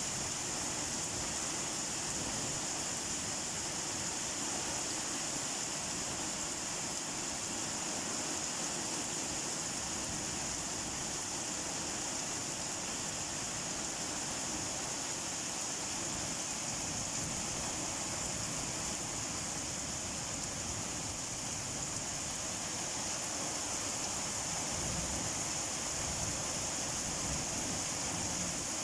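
Steady rainfall: an even, unbroken hiss with no separate drops, thunder or other events standing out.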